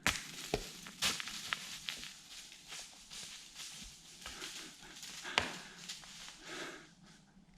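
Footsteps and scrapes on rock during a steep climb on foot, with heavy breathing: irregular sharp knocks and clicks, the loudest about a second in and about five and a half seconds in.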